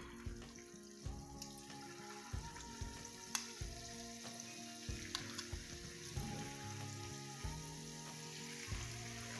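Batter-coated cauliflower pieces sizzling in hot oil in a frying pan, with a few sharp clicks as more pieces are dropped in. Quiet background music with held notes plays underneath.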